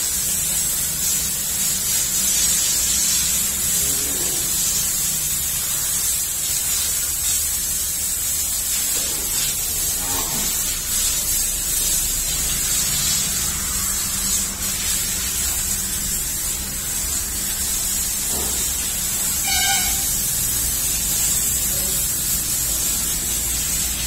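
Water jetting from a garden hose onto a buffalo's hide and splashing onto the concrete floor, a steady hiss.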